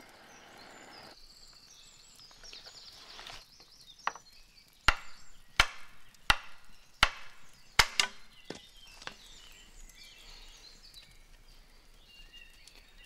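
Scorched red deer antler being struck to break it at the scorched, brittle spot: a series of sharp knocks, about one every three-quarters of a second, loudest in the middle.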